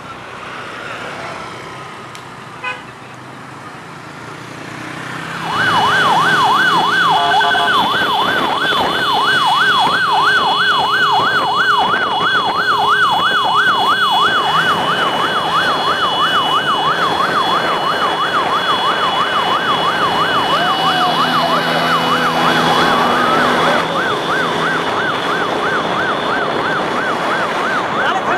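Electronic siren yelping, its pitch sweeping up and down about four times a second, coming in loud about five seconds in over quieter traffic noise, with a steady high tone running alongside most of the time.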